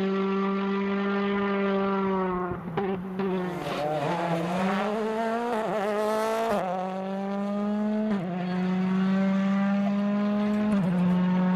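Turbocharged four-cylinder rally car engines at high revs on a special stage: held at a steady high pitch, then revs rising and falling through braking and downshifts with a few sharp pops, then a car pulling hard with the pitch climbing and dropping at each upshift.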